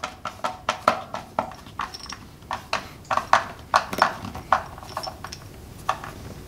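Screwdriver tightening a screw on a wire clamp: a run of sharp, irregular clicks, two or three a second, thinning out after about four seconds.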